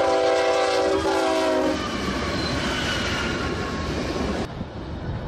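A train horn sounds a steady chord of several notes for about two seconds. It gives way to the noisy running of a moving train, which thins out about four and a half seconds in.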